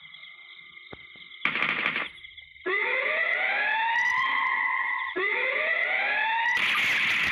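Two rising siren-like wails, each climbing in pitch and levelling off over about two seconds, over a steady high tone. A burst of loud noise comes in near the end.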